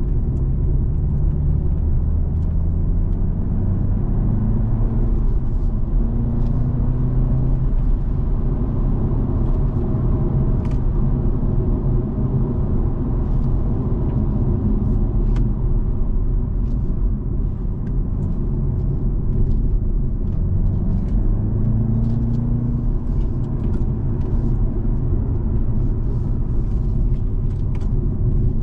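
A BMW's engine and tyre noise heard from inside the cabin while lapping a circuit. The engine note rises as it accelerates and drops off for the corners, over a constant low road rumble with faint scattered ticks.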